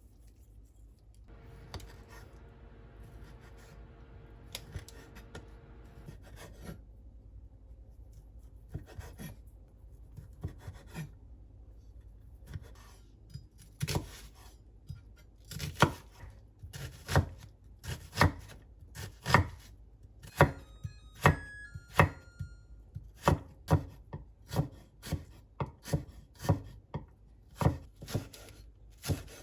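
Kitchen knife chopping on a cutting board. The first half has only faint scattered knocks and a brief steady hum. About halfway in, even, loud strokes begin, roughly one and a half a second, and run on to the end.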